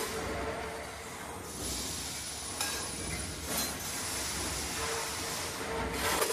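Surface-texturing machine cutting grooves into a rotating steel rod: a steady hissing machining noise with a hum that comes and goes and a few metallic clinks.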